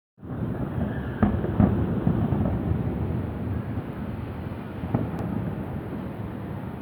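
Fireworks going off: a steady low rumble of overlapping booms, with sharper bangs about a second in, again shortly after, and near five seconds.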